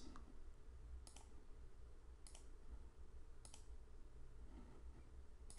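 Four faint computer mouse clicks, about a second apart, as records are ticked and the Delete button is pressed, over a low steady hum.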